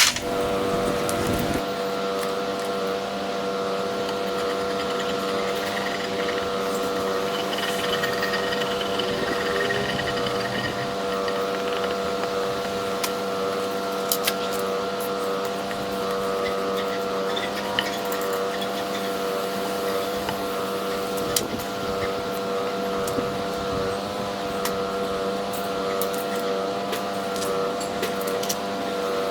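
Steady machine hum: several fixed tones at an even level throughout, with a few faint clicks.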